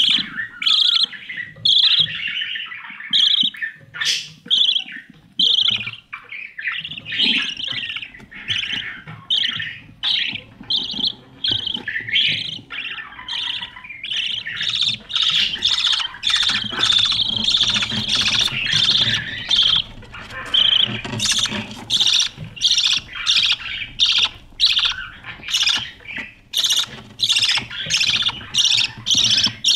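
Budgerigars calling inside a nest box: a long run of short, repeated chirps and squawks, coming faster and closer together in the second half.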